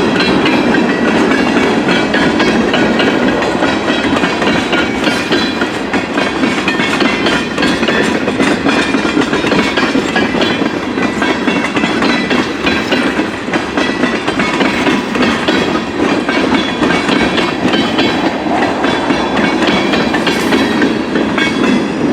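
CN freight train rolling past close by: a steady, loud rumble of wheels on the rails, with many small clicks and rattles from the cars.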